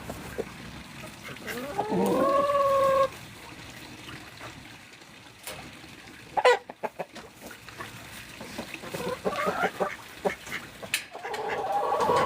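Backyard chickens clucking and calling, with one drawn-out call that rises and then holds about two seconds in, and a single sharp knock midway.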